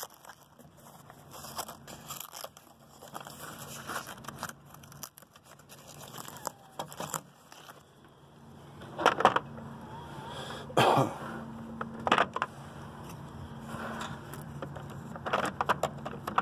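Handling noise from two cordless 12 V ratchets being picked up, turned over and set down: scattered knocks and clicks over light rustling, with a low steady hum starting about halfway.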